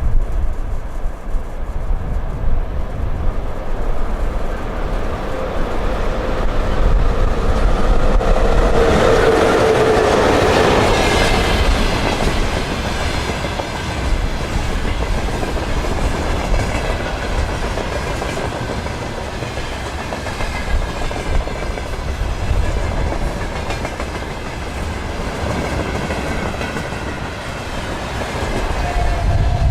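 VL80S electric locomotive passing with a freight train, loudest about eight to eleven seconds in, where a tone drops in pitch as it goes by. The freight wagons then roll past steadily.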